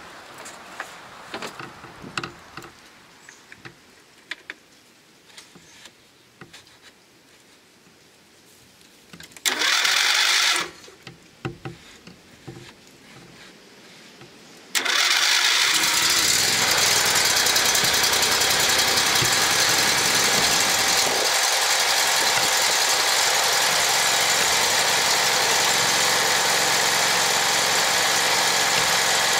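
John Deere LA130 riding mower engine cold-started after four or five months parked: a try of about a second, ten seconds in, that does not keep going, then about five seconds later it starts and runs steadily.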